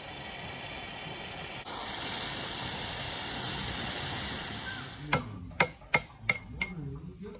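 Gas torch flame hissing steadily as it heats a rusted castle nut on a gearbox shaft to free it. About five seconds in, it gives way to five sharp ringing metal knocks in quick succession as a steel rod is worked against the nut.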